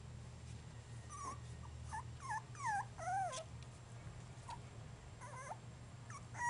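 Basenji puppies about three and a half weeks old whimpering: a run of short whines that rise and fall in pitch, starting about a second in, then a few more near the end.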